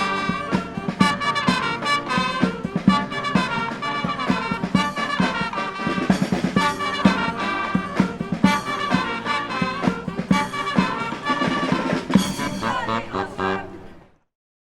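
Brass band playing an upbeat tune with trumpets, trombones and drums, fading out near the end.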